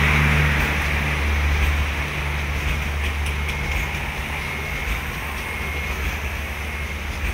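Talgo coaches of the Strizh passenger train rolling past at speed: a steady rush of wheels on rail with a low hum that fades about halfway through. A faint high whine comes and goes midway, and the whole sound eases off as the train goes by.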